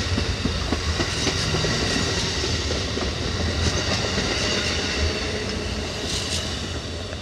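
Amtrak California Zephyr's Superliner passenger cars rolling past close by, wheels clicking over rail joints over a steady rumble with faint high ringing tones. The sound starts to fade near the end as the last cars go by.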